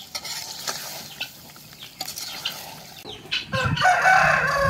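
A rooster crowing: one loud call beginning about three seconds in, after a stretch of quieter scattered sounds.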